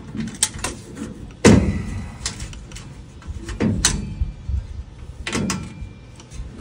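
A few sharp knocks and clanks in a workshop, the loudest about a second and a half in, with others near the middle and near the end.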